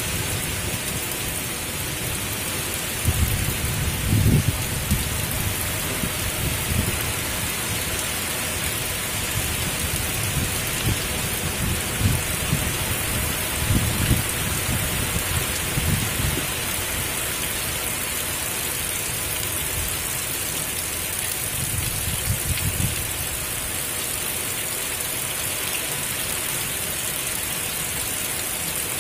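Heavy rain falling steadily in strong wind, with low rumbling bursts a few seconds in, through the middle and again about three-quarters of the way through.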